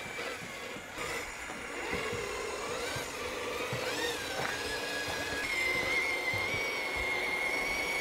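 Axial SCX10 III Base Camp 1/10 electric RC crawler's motor and metal-gear transmission whining as it crawls. The pitch rises and falls with the throttle, then holds steady for the last few seconds.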